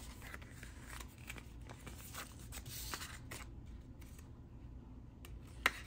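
Paper banknotes and envelopes being handled: soft rustling with scattered small clicks and snaps, and one sharper click near the end.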